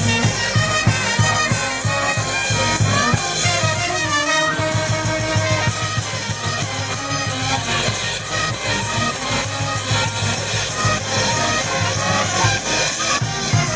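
Brass band playing a pasacalle: trumpets and other brass carry the tune over a steady drum beat.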